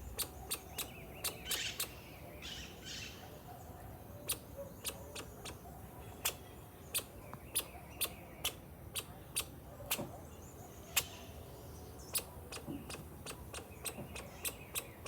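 Birds chirping during the first few seconds, over a run of irregular sharp clicks, two or three a second.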